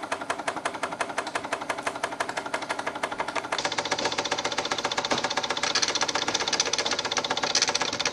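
Bing 130-273 toy steam engine running on live steam, its strokes coming as a fast, even beat. The sound turns brighter and sharper about three and a half seconds in.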